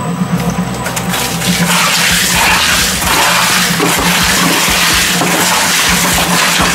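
Twin-shaft shredder running with a steady hum as its rotating cutter blades grind at a whole red cabbage. A wet crunching and tearing noise builds up about a second and a half in and carries on.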